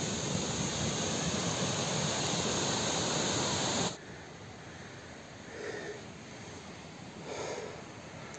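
Steady rushing noise of wind and rain on an outdoor microphone, cutting off abruptly about four seconds in. After that a quieter hiss remains, with three faint soft breaths spaced a little under two seconds apart.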